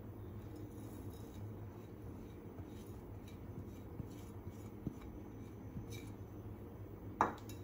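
Light clicks and taps of a glass bowl and spatula against a frying pan as ground spices are tipped into tamarind water, over a steady low hum; a sharper knock near the end.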